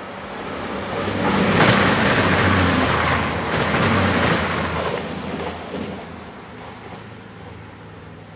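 CrossCountry Voyager diesel multiple unit passing through the station close by. Its underfloor engines and wheels on the rails build up over the first second or so, are loudest for about three seconds, then fade away as it leaves.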